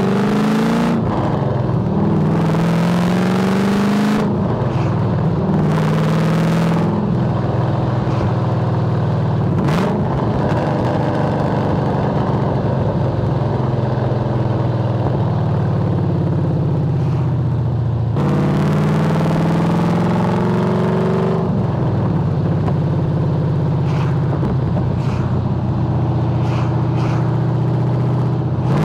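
Holden VY Commodore SS's 5.7-litre LS1 V8 driving on the road. The engine note rises under acceleration and drops at each gear change, twice in quick succession early on and again about two-thirds of the way through, and holds a steadier cruising note in between.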